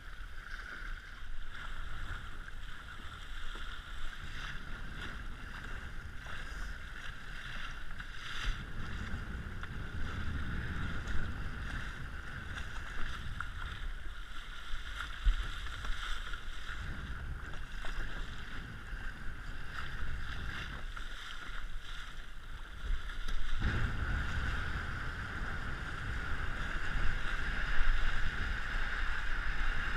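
RS100 sailing dinghy under way: wind buffeting the action camera mounted on board over the rush and slap of water along the hull. It gets louder about three-quarters of the way through.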